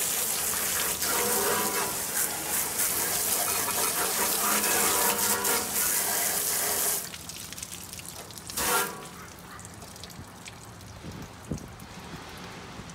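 Water spraying from a garden hose nozzle onto a stainless-steel gas grill, rinsing off the degreaser. The spray cuts off about seven seconds in, with one more short burst a second or two later.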